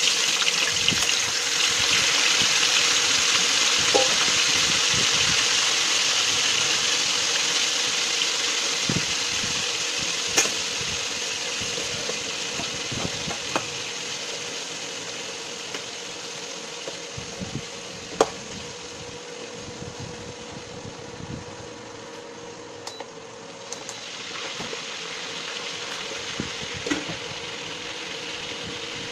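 Chicken feet frying in hot oil in a stainless steel pot: a loud sizzle that starts suddenly as they go in and slowly dies down, with a few sharp clinks of a metal spatula against the pot.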